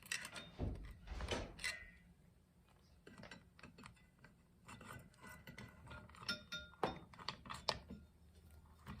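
Faint, scattered clicks, knocks and clinks of metal transmission parts being handled and fitted together, a few giving a brief metallic ring around the middle.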